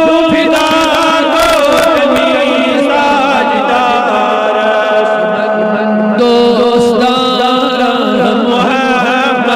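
A man chanting a Kashmiri naat, a devotional poem in praise of the Prophet Muhammad, in long, wavering melodic lines with no pause. A steady held note sounds beneath the voice.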